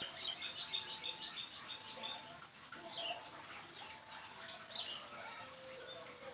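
Small birds chirping and twittering, many short quick calls, some sliding down in pitch, with a few longer thin whistled notes.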